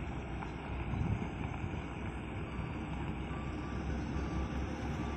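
Low, steady rumble of diesel dump-truck engines, with no sudden changes.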